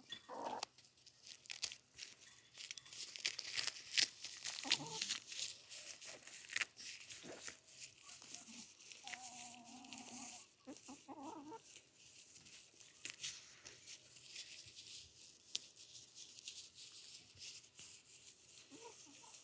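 Backyard chickens clucking a few times, with a longer call about nine seconds in, over constant crackling and rustling.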